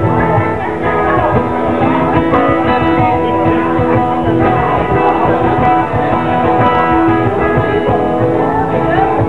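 Two acoustic guitars played live together, a continuous instrumental passage of a sixties pop song.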